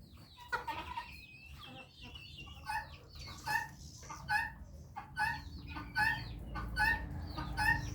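Chicken clucking: a steady run of short, evenly spaced clucks, a little more than one a second, starting a few seconds in.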